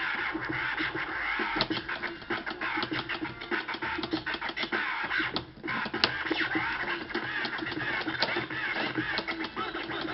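Turntable scratching: a vinyl record pushed back and forth by hand under the stylus, chopped by quick fader cuts on the mixer into a fast, stuttering run of scratches with no pauses.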